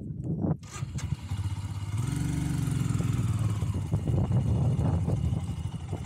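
Motorcycle engine picking up about a second in, then revving up around two seconds in and running steadily under throttle.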